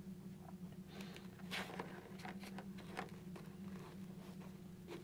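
Faint scattered clicks and rustles of fingers working a plastic wiring clip and cable down into the gap between a motorcycle helmet's outer shell and its EPS foam liner, over a low steady hum.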